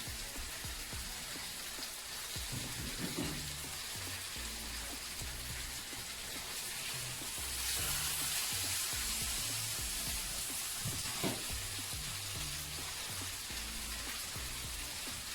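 Chicken breasts sizzling in a hot frying pan, a steady hiss that swells a little in the middle, with two light knocks. Background music with a low bass line plays under it.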